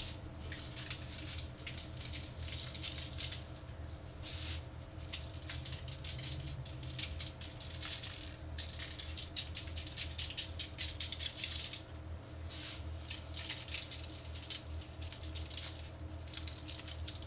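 Dry barbecue rub shaken from a shaker bottle onto racks of pork spare ribs: fast, even rattling shakes in runs, with brief pauses between them.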